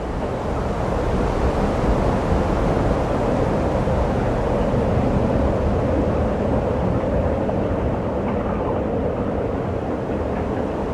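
Steady roar of breaking ocean surf and whitewater, rising in over the first second and then holding level.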